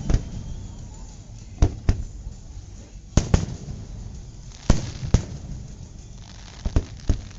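Aerial fireworks display: sharp bangs of shells going off about every second and a half, often two in quick succession, each trailing off in a short echo over a low rumble.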